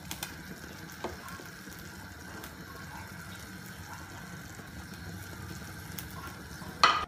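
Steady hiss of a pot of pulao steaming on the stove as its water cooks off, with a few faint clicks. Near the end, a short loud clang as the metal lid goes on to seal the rice for dum, after which the hiss is muffled.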